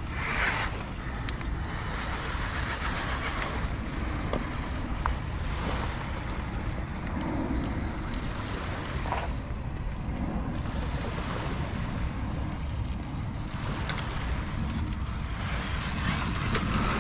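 Wind buffeting the microphone: a steady low rumble, with a rushing noise that swells and fades every few seconds in gusts.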